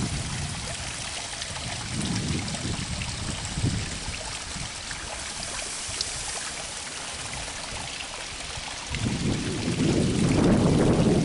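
Water trickling and running steadily where a small channel flows into the river, with wind buffeting the microphone, heavier from about nine seconds in.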